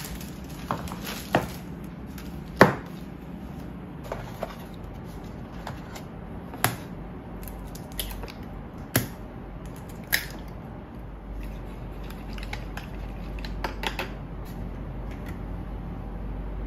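Kitchen food-prep handling sounds: a dozen or so separate knocks and taps, including eggs being cracked against and into a white dish and a fork beating them, over a faint steady hum. The loudest knock comes about two and a half seconds in.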